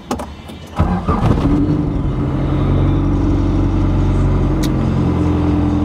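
Cold start of a right-hand-drive Honda CRX with a high-compression B20 engine: the engine catches about a second in and settles into a steady idle, heard from inside the cabin.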